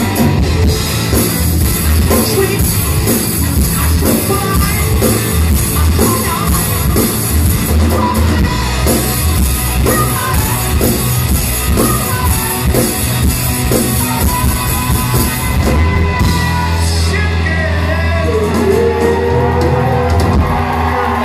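Live rock band, with distorted electric guitar, bass, drum kit and a high wailing lead vocal, playing loudly in a club hall, heard from within the crowd. About three-quarters through, the drum beat stops and a held chord rings under sliding vocal wails.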